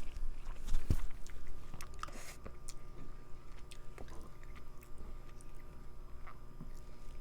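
Close-miked chewing of a mouthful of Indian curry and naan: small wet clicks and smacks of the mouth, with one sharp knock about a second in.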